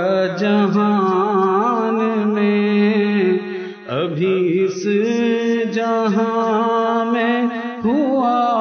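A man singing an Urdu ghazal in tarannum, drawing out long wavering notes with no clear words. There is a short break for breath about four seconds in and another near the end.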